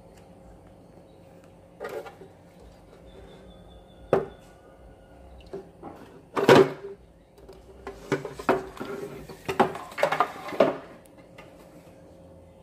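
Knocks and clatter from hands handling a fish tank's lid: a few separate sharp knocks, the loudest about six and a half seconds in, then a run of knocks and rattles, over a faint steady hum.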